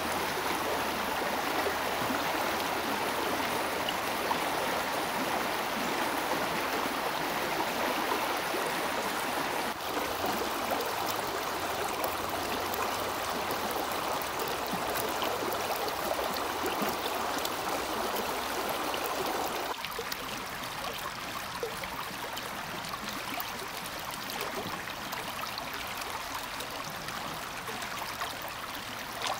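Shallow river water rippling and gurgling over stony riffles in a steady rush. The sound shifts twice, about a third and two-thirds of the way in, and is a little quieter and thinner in the last third.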